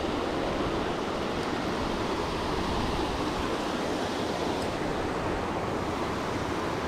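Small waterfall cascading over a rock ledge into a pool: a steady rush of water, loud up close.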